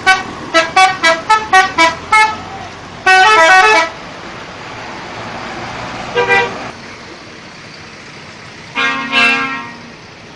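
Indonesian bus's 'telolet' multi-tone musical horn playing a quick run of about eight short toots at changing pitches. It follows with a held chord of about a second, then two shorter blasts near the middle and near the end, over steady road-traffic noise.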